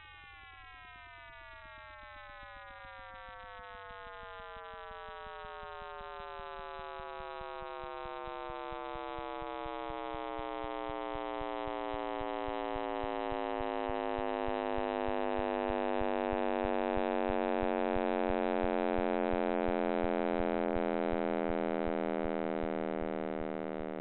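Sonification of the Big Bang, built from the temperature fluctuations of the cosmic microwave background and sped up into the range of hearing. A stack of synthetic tones glides slowly downward in pitch while growing steadily louder, then eases off near the end, over a faint low buzz.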